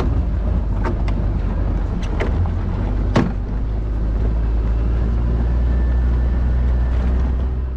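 A vehicle driving up a rough dirt trail: a loud, steady low rumble of engine and road, with a few sharp knocks in the first few seconds as it jolts over the rocky track.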